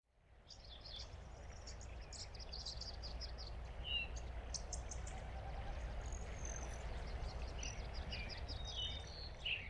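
Outdoor ambience of birds chirping, with many short high chirps and a few brief whistles, over a low steady rumble; it fades in over the first second.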